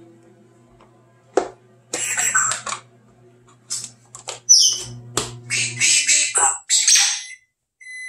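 African grey parrot squawking: a run of harsh, high calls starting about a second and a half in and stopping shortly before the end.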